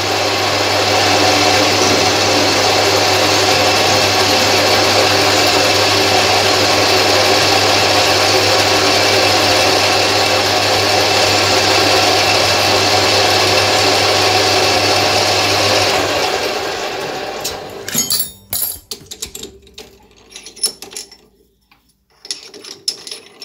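Metal lathe running, its spindle and chuck spinning at steady speed with a constant low motor hum under a broad whir. It winds down about sixteen seconds in, followed by a few light metallic clicks and clinks as the chuck is handled.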